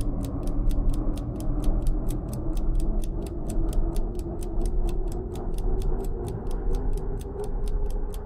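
Film soundtrack ticking, fast and even at about four ticks a second, like a clock, over a low sustained drone.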